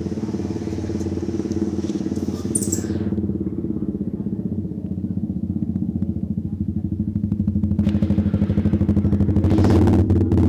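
A vehicle engine running with a steady, rapid pulsing throb, growing louder near the end.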